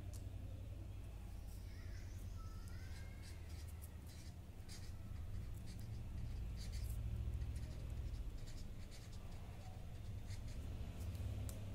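Felt-tip marker scratching across paper in short strokes as words are written, over a steady low hum.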